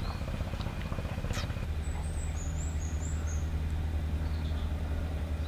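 A low, steady engine drone, growing louder about a third of the way in, with faint high bird chirps and a few light clicks over it.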